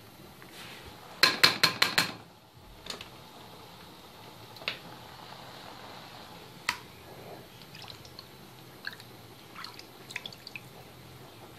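Water dripping and trickling as washed mustard greens are lifted from a bowl of water with a small steel strainer. A quick run of about six sharp knocks comes a little over a second in, followed by scattered single clicks.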